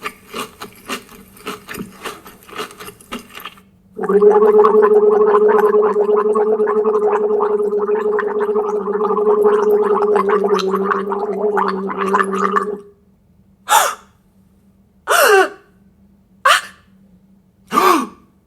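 A person gargling water while holding a steady hummed note, a bubbling sound lasting about nine seconds, preceded by a fast run of clicks and followed by four short vocal sounds, each sliding down in pitch.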